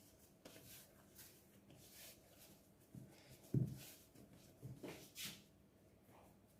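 Faint sounds of hands kneading and rounding a soft yeast dough on a floured worktop: a few soft, dull thuds, the strongest a little past halfway, with light rubbing between them.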